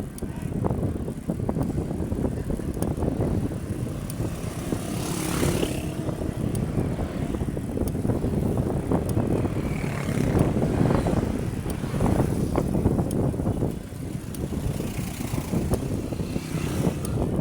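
Wind buffeting the microphone and road rumble while riding a bicycle, with a swelling whoosh twice, about five seconds in and near the end.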